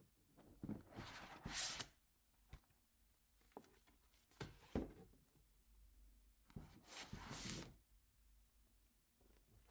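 Plastic document binders rubbing and scraping against each other as one is slid out of a shelf row and pushed back: three short rustling scrapes, each about a second long.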